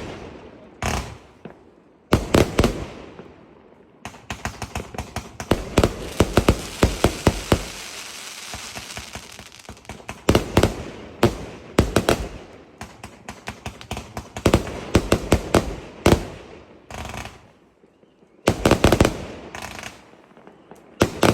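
Hallmark Dreadnought 296-shot compound firework cake firing: volleys of sharp bangs in quick succession with short gaps between them, and a long dense run of rapid reports about four to nine seconds in.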